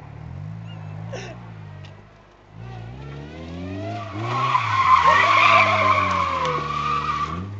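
Honda Civic coupe spinning donuts: the four-cylinder engine revs up and down, and from about four seconds in the tyres squeal loudly as the car slides around. The squeal stops just before the end.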